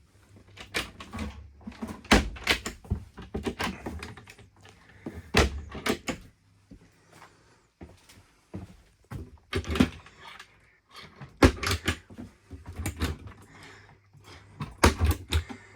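Cabin storage compartment doors and cabinet doors being opened and closed, giving an irregular series of clicks, knocks and thumps.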